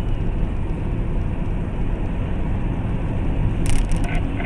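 Car driving: a steady low rumble of engine and road noise, with a few light clicks near the end.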